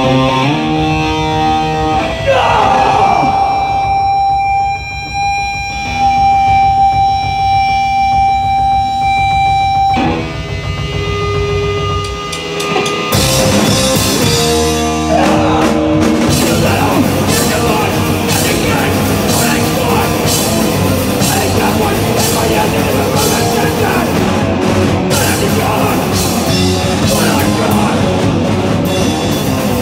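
A punk band playing live and loud with distorted electric guitar and drum kit. For the first several seconds a guitar holds one ringing note, then about thirteen seconds in the full band comes in with fast drums and dense distorted guitars.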